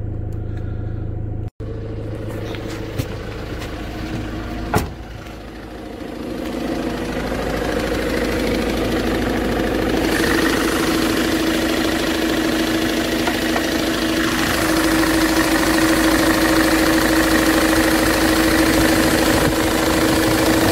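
Ford Transit engine running with an unexplained knock, which the owner places somewhere in the middle of the engine. A single sharp click sounds about five seconds in, and the engine noise then grows louder and runs steadily with a steady hum.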